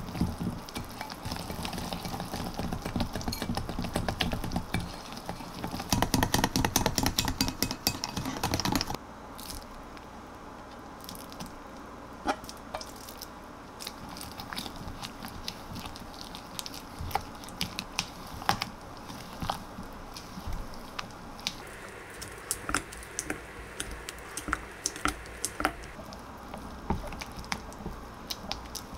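Wire whisk beating pancake batter (pancake mix, egg and milk) in a glass bowl, with fast continuous clinking and sloshing. About nine seconds in it gives way to quieter, slower stirring with a spatula, with scattered soft taps against the bowl as pumpkin is folded into the batter.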